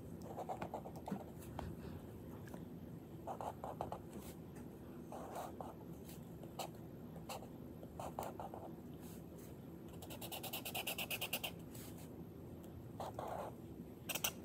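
Chisel-tip marker scratching and squeaking across sketchbook paper in short bursts of quick back-and-forth strokes, filling in a shape. About ten seconds in there is a faster, higher-pitched run of strokes.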